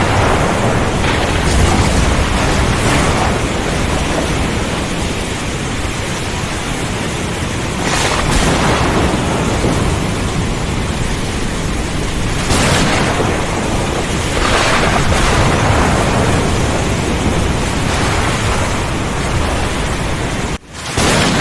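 Thunderstorm ambience: heavy rain and strong wind with a deep, rolling thunder rumble underneath and a few louder surges. The sound drops out briefly near the end.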